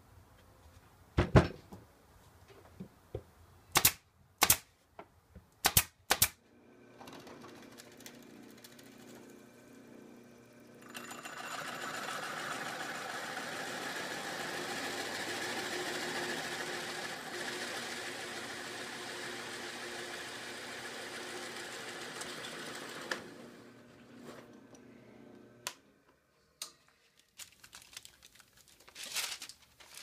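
A few knocks as the oak birdhouse body is handled, then a drill press motor starts and runs. About eleven seconds in, the bit cuts into the oak slats, boring the round entrance hole with a steady cutting noise for about twelve seconds. Then the motor is switched off and runs down.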